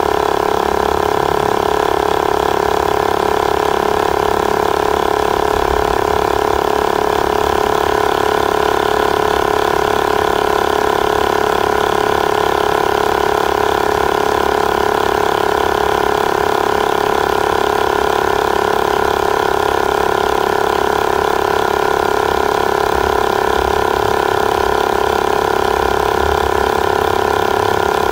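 Wheeler portable electric tire inflator's compressor running with a steady hum as it pumps a tire up. The pressure is still climbing toward its 40 psi preset, so the pump has not yet shut off.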